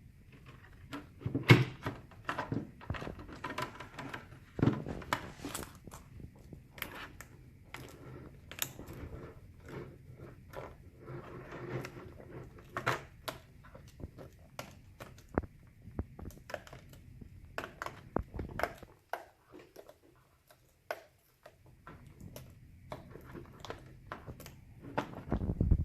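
Irregular clicks, taps and rustles of hands handling an opened laptop while fitting a replacement LCD panel and plugging in its display cable connector.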